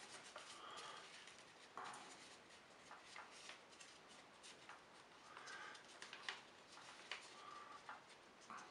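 Faint rustling and soft crackling clicks of paper being creased and folded by hand, scattered and irregular.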